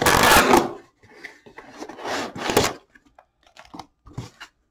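Cardboard shipping box and its packing material being handled: crinkling and rustling, loudest at the start and again about two seconds in, then light scattered rustles and taps.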